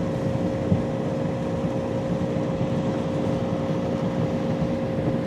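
Small boat's outboard motor running steadily under way, a constant drone with a steady whine.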